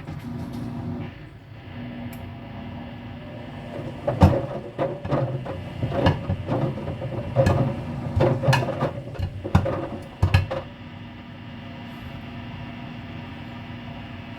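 GE washer-dryer running with a steady motor hum. For about six seconds in the middle there is a run of loud, irregular knocks and clatters.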